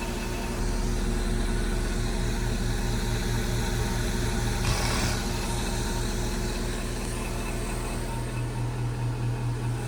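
Outdoor heat pump unit running in heat mode: a steady low compressor hum with the fan running, and a brief rush of noise about five seconds in.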